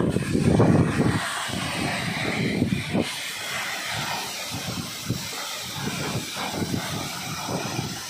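Waterfall rushing, a steady roar of falling water, with gusts of wind buffeting the microphone, heaviest in the first second.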